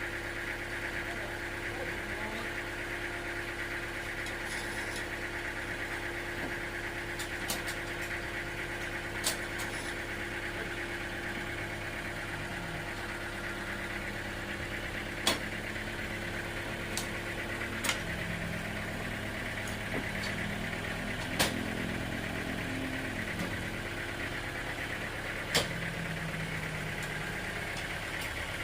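Sawmill machinery running steadily with a constant engine-like hum, broken by a handful of sharp knocks.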